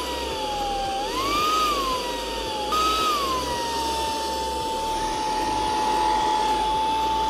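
Proscenic P11 cordless stick vacuum's motor running with a whine that rises and falls back in pitch twice as its power setting is changed on the touch button, jumps up again about three seconds in and eases down, then holds steady.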